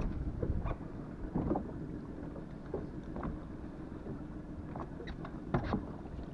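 Wind rumbling on the microphone aboard a small boat at sea, with a few faint knocks and clicks from handling the spinning rod and reel.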